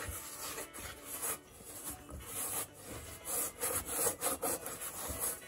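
Hands kneading a firm dumpling dough in a pan, with repeated rubbing and scraping strokes of the dough against the pan.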